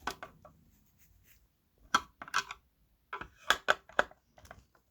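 Phillips screwdriver and small screws clicking and scraping against a speaker's casing while the screws are taken out: a few sharp, irregular clicks, bunched together near the end.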